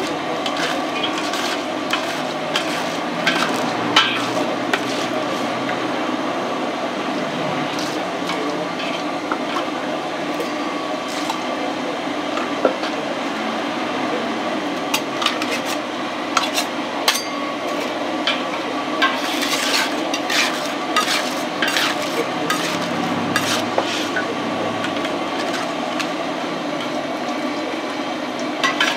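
A metal scraper stirring and scraping thick sugar syrup in a stainless steel bowl set in a water bath to cool it, with many sharp metal-on-metal scrapes and clicks over a steady hum.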